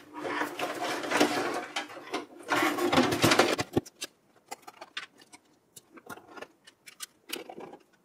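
Sheet-metal housing of a PC power supply scraping and rattling against the steel case as it is pushed into its bay, ending in a sharp click about four seconds in. Scattered light clicks and knocks of cables and handling follow.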